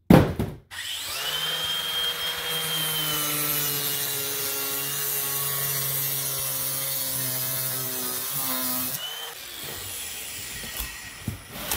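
A cardboard box hits the floor with a thud, then a cordless angle grinder runs with a steady whine for about eight seconds as its disc cuts the packing tape along the box's seam, stopping about nine seconds in.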